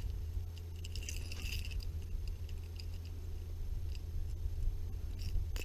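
Small clicks and rattles from a fish lip-grip and a hooked lure being handled while a small striped bass is unhooked, in a cluster about a second in and again near the end. A steady low rumble lies underneath.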